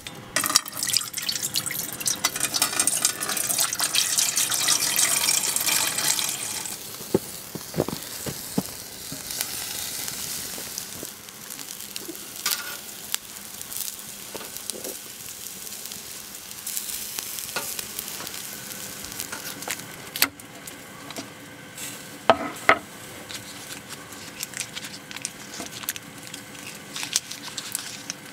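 Sausages sizzling on a wire grill grate over an open wood fire. The sizzle is loudest for the first six seconds or so, then drops to a softer hiss with scattered clicks and crackles.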